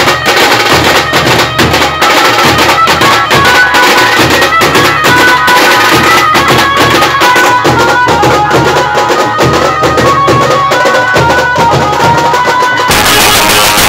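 Indian street brass band playing loud and fast: dense drumming on side drums and a bass drum under a high, reedy stepping melody, amplified through horn loudspeakers. The sound changes abruptly about a second before the end.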